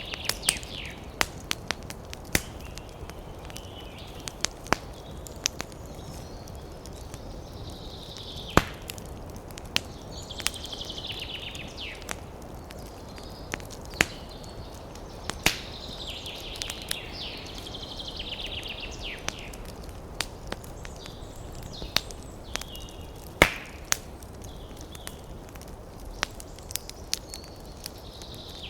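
Campfire of burning wood crackling, with sharp pops at irregular intervals over a low steady background, one pop much louder about two-thirds through. Birds sing short trilled phrases every few seconds.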